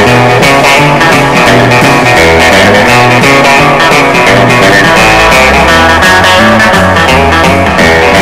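Background music: a guitar-led rock or blues track with a steady bass line.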